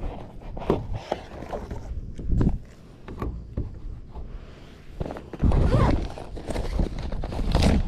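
A few hollow knocks and thuds against a plastic sit-on-top kayak, with rustling handling noise, as fishing gear is pulled out and moved around on board.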